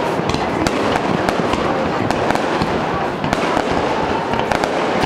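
Aerial fireworks bursting in rapid succession, many sharp cracks and bangs overlapping on a continuous rumble.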